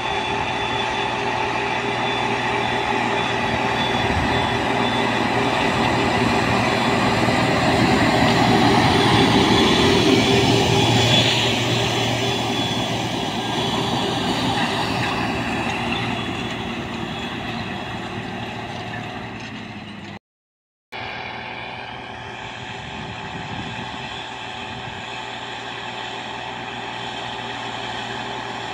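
Belarus MTZ-3022 tractor's diesel engine working steadily as it pulls an AKSh-7.2 tillage unit through the soil. It grows louder as the tractor passes close about ten seconds in, then fades as it pulls away. The sound cuts out briefly about two-thirds of the way through, then resumes quieter.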